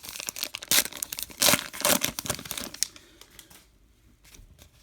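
Baseball card pack wrapper crinkling and tearing open, with a few loud snaps in the first couple of seconds, then fading to faint rustles of cards being handled.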